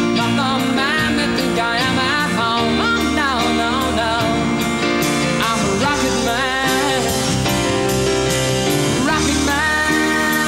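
A rock song playing: a sung melody over guitar and a steady drum beat.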